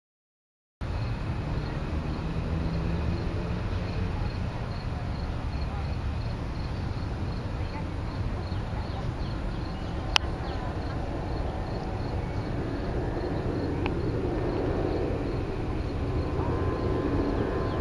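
Outdoor ambience: an insect chirping high and evenly, about two to three chirps a second, through the first half, over a steady low rumble. A sharp click about ten seconds in, and a fainter one near fourteen seconds.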